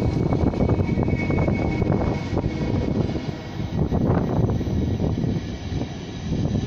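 NS ICMm electric intercity train pulling out and rolling past close by: a loud, steady rumble of wheels on rail, with many short knocks as the wheels run over the track.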